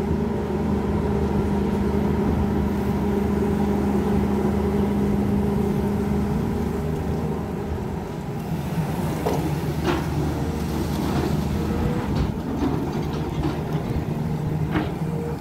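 Diesel engine of a Volvo long-reach excavator running steadily under work as the machine lifts and swings its boom while dredging silt; the engine note shifts about six seconds in.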